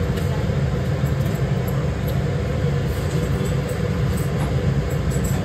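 Steady low mechanical rumble with an even hiss over it, unbroken and without speech.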